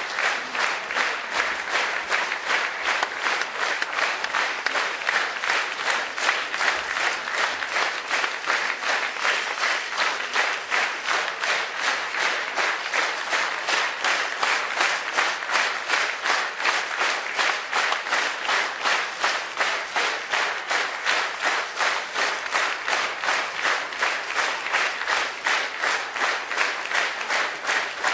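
Concert audience applauding at length, the clapping settling into a steady rhythmic beat.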